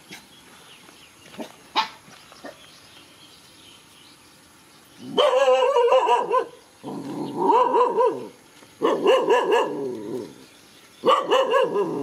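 A dog barking in four quick, high bouts, the first about five seconds in; before that, only a couple of faint clicks.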